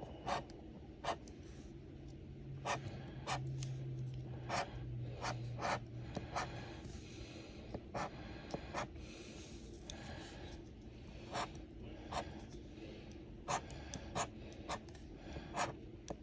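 Scratch-off lottery ticket being scratched: many short, irregular scraping strokes across the card's coating.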